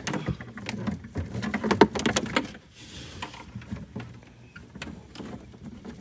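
Clicks, knocks and rattles of hands and tools working loose a car's interior wiring, busiest and loudest in the first half, then fainter scattered ticks.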